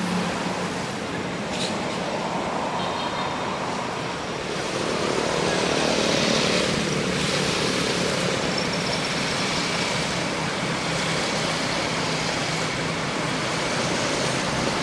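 Steady rushing outdoor background noise with no distinct event, with a few faint, brief high-pitched tones now and then.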